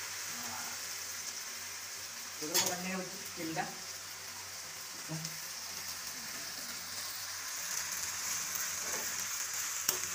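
Spaghetti sizzling in a hot wok of spicy sauce as it is stirred with a spatula: a steady frying hiss, with a few short louder sounds about two and a half to three and a half seconds in.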